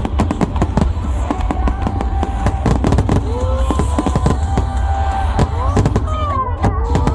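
Fireworks bursting and crackling in rapid succession over a deep rumble, with music with a sung melody playing under them.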